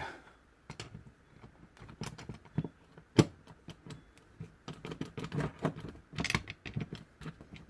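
Small metal hand tools and steering-lock parts clicking and tapping together as they are handled. The sharpest knock comes about three seconds in, and the clicks come thicker from about five seconds.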